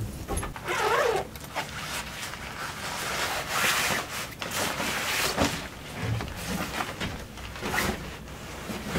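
Rustling and swishing of synthetic fabric as a quilted, padded blanket is pulled out of its stuff sack and handled, in a run of irregular bursts.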